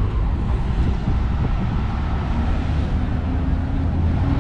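Wind rumbling on the microphone outdoors. About halfway through, a low engine hum joins it, rising slightly in pitch.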